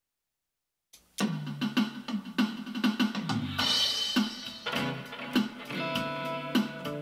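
Instrumental music starts about a second in: a steady drum beat over a bass line, with held guitar notes coming in around the middle. The guitar is an acoustic played through a Zoom G1 Four effects pedal into a Cube-10 amp on its clean setting with a touch of reverb.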